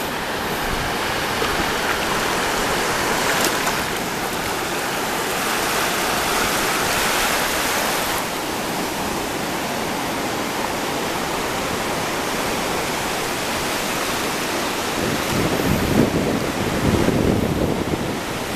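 Shallow surf washing up and back over wet sand at the water's edge, a steady rushing that swells and eases. A low rumble with a few thumps near the end.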